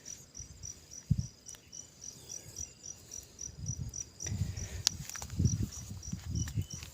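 A cricket chirping steadily: a high-pitched pulse about four times a second. Low rustling and a few knocks from handling come in from about halfway through.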